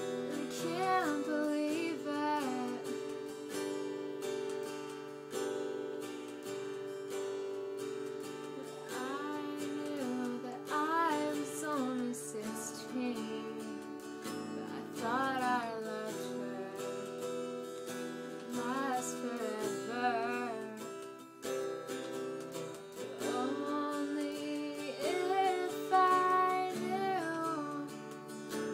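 A woman singing solo with her own acoustic guitar accompaniment, the sung melody carried over steady strummed chords.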